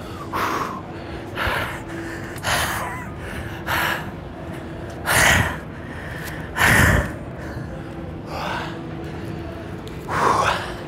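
A man panting heavily and out of breath, with rough gasping breaths about once a second or so. Two louder, deeper gasps come around the middle.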